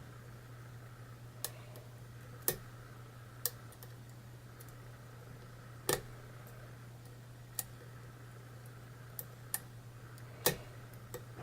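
Scattered, irregular small metallic clicks of a lock pick and tension wrench working the pins of a challenge lock, as the picker feels for a false set. A steady low hum runs underneath.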